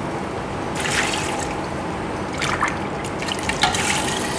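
Water poured from a bowl into a pressure cooker pot onto soaked chickpeas, splashing and trickling as the pot fills.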